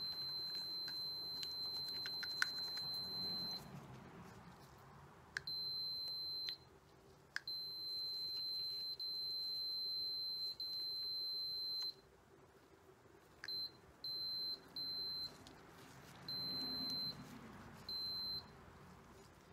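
Digital multimeter's continuity beeper giving a steady high beep that cuts in and out: long stretches at first, then a run of short beeps near the end. The probes are on the float switch of a Mercury outboard's fuel supply module, and each beep marks the switch closing its circuit.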